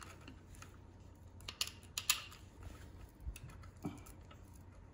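Wire cutters snipping at the end of an electric scooter's steel brake cable, cutting off the cable's end cap: a few scattered sharp clicks, the loudest about two seconds in.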